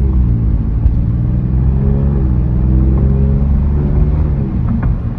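The Alfa Romeo Giulia Quadrifoglio's Ferrari-derived V6 under way, heard from inside the cabin. The engine note rises and falls twice, dropping sharply about two seconds in.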